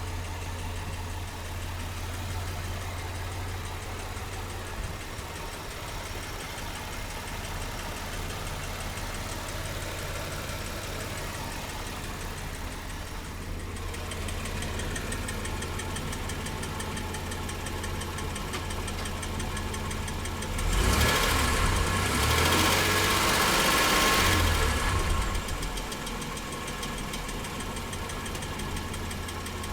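Mitsubishi 6G72 V6 engine idling with a knock that the owner cannot explain. It gets louder for about four seconds around two-thirds of the way through.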